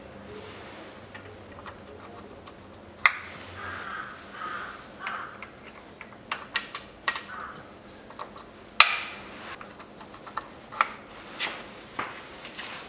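Irregular sharp metallic clicks and taps as bucket tappets are set by hand into their bores in a Toyota 3S-FE cylinder head, about a dozen over the stretch, the loudest about three and nine seconds in.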